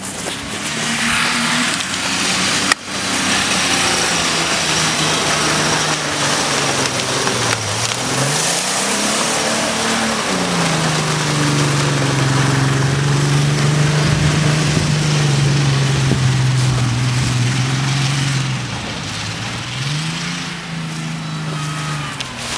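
Jeep Cherokee XJ engine running hard under load while its tyres spin and fling mud across a soft meadow; the engine note holds steady, dropping and climbing back twice, over a constant rushing noise of tyres and spray.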